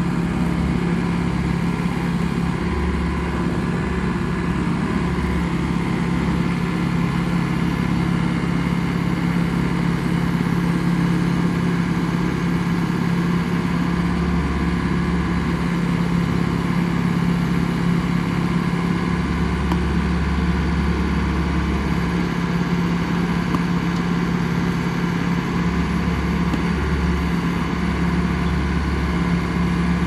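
Skid-steer loader's engine running steadily at an even pitch while the machine carries a log in its grapple and lifts it onto a trailer.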